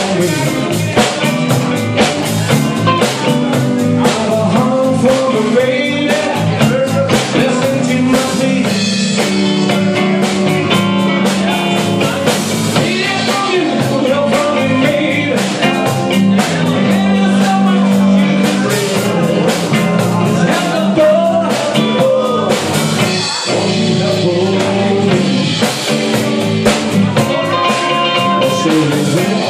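A live blues-rock trio playing: electric guitar, bass guitar and drum kit, with a lead vocal.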